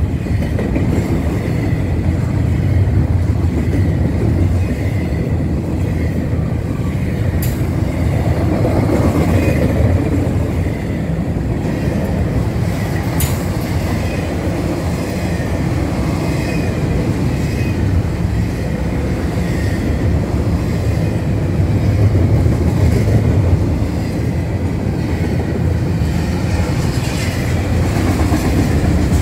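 Double-stack intermodal freight cars rolling past: a steady rumble of steel wheels on rail with clickety-clack over the rail joints and a faint wheel squeal. Two sharp clicks come about 7 and 13 seconds in.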